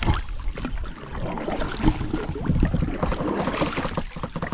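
Water sloshing and splashing around a small canoe under way, with uneven low thumps.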